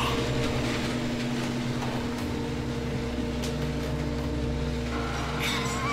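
Electric paper shredder running with a steady motor hum as it shreds paper. A short rising squeal comes near the end.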